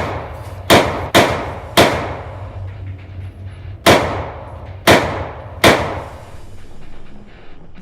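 Gunshots at a shooting range: six sharp, loud shots, each followed by an echoing tail. Three come in quick succession about a second in, and three more follow about a second apart from around four seconds in.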